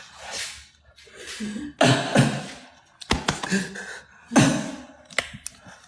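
A man's heavy, gasping breaths, some half-voiced, coming about every two seconds, with a few sharp clicks between them. It is the laboured breathing of someone who says he feels short of oxygen.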